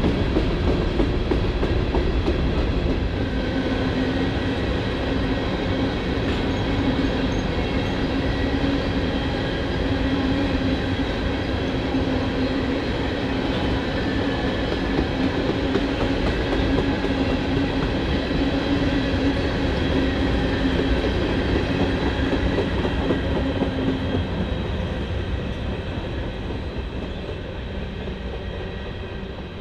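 Norfolk Southern freight train cars rolling past, a steady rumble with wheel clatter and a steady tone through most of it that stops about four-fifths of the way in. The sound fades over the last few seconds as the train moves away.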